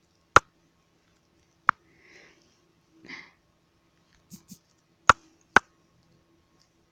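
Four sharp, isolated clicks spread over several seconds, with a couple of faint soft sniff-like breaths between them.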